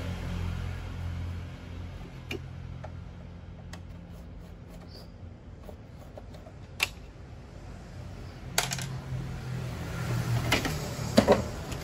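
Scattered sharp metallic clicks and taps of a screwdriver working screws out of a photocopier's toner hopper cover, a few at a time with pauses between, over a low hum that fades a second or two in and returns near the end.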